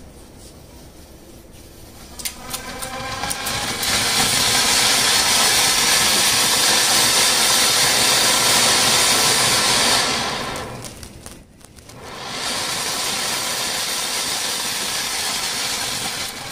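Anar (flowerpot fountain firework) spraying sparks with a loud, steady hiss. It builds over the first few seconds, drops away briefly about two thirds of the way through, then resumes somewhat quieter.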